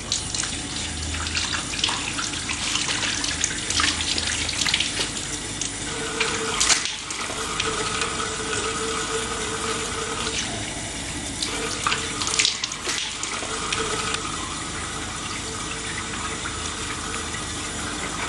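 Kitchen tap running steadily, the water splashing over leafy greens being rinsed under it.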